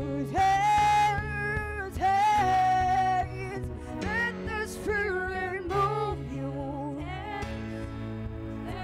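A live worship song: a woman sings held, wavering notes over a small church band's keyboard and bass accompaniment.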